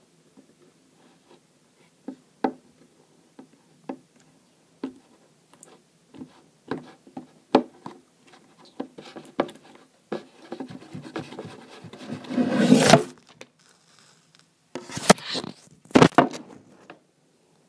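Silicone spatula stirring slime in a bowl: scattered clicks and taps, building to a longer, louder stretch of scraping and rubbing about twelve to thirteen seconds in. A few sharp knocks follow near the end as the recording device is bumped and handled.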